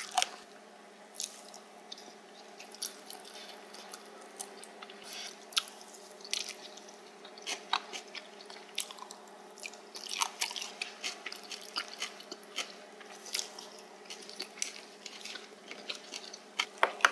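Close-up chewing of spicy stir-fried pork cartilage (odolbbyeo), with many short, crisp crunches scattered throughout as the gristle is bitten, over a steady low hum.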